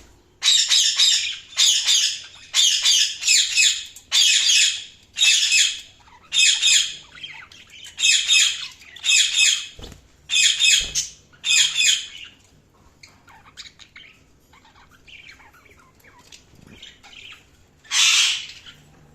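Budgerigar giving a fast series of loud calls, roughly one a second, which then give way to softer chatter, with one more loud call near the end.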